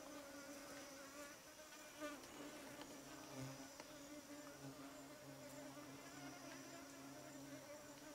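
Faint, steady insect buzzing: a low, even hum that holds with little change in pitch.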